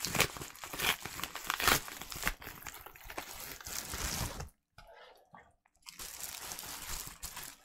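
Crinkling and rustling of a yellow mailer envelope and the wrapping around a mask as it is pulled out. The crinkling is busy with sharp crackles for about four and a half seconds, drops to a short lull, then picks up again.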